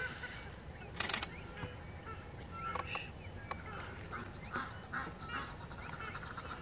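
Waterbirds calling around the dam, a mix of honks and short chirps, with a brief burst of noise about a second in.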